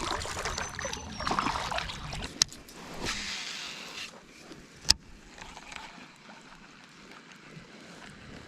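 Water sloshing and splashing around a kayak, with two sharp clicks, one about two and a half seconds in and one about five seconds in, then quieter.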